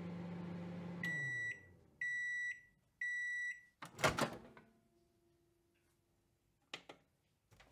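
Microwave oven running with a steady hum that winds down and stops as the timer runs out, then three high beeps about a second apart signalling that it is done. A loud clunk follows, the door popping open, and two short clicks near the end.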